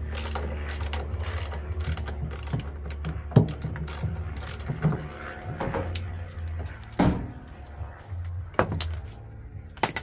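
A screwdriver and metal parts being worked at a washing machine's front tub casing: a run of small metallic clicks and ticks, with a few sharper knocks, over a low steady hum.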